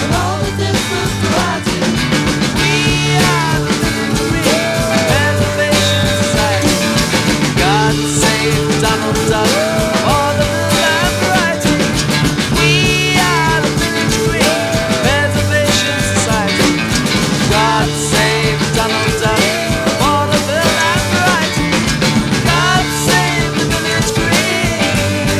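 Rock music with no words heard: a full band with drums and a lead line that slides up and down in pitch, repeating every few seconds.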